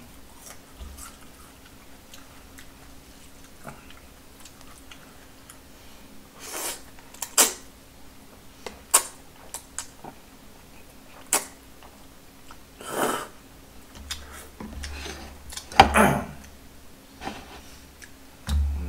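Close-up eating sounds of a man working through black-bean-sauce noodles (ganjjajang): wet chewing and slurps in scattered bursts, with a few short sharp clicks between them.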